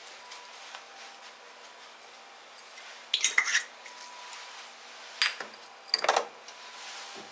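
Short clinks and taps of small kitchenware as dried herbs are shaken over a ceramic bowl of soup: a cluster about three seconds in, a single sharp tap about five seconds in, and another cluster about six seconds in.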